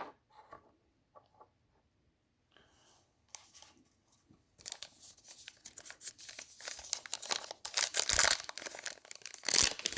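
Trading card wax pack wrapper being torn open and crinkled, starting about halfway through after a few faint clicks of cards being handled.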